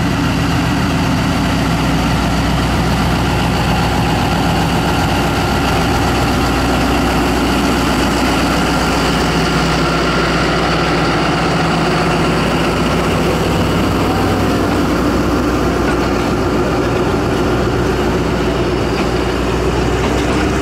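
Diesel-electric locomotive engine running steadily as the locomotive slowly pulls the train away and passes by, its engine note changing about halfway through.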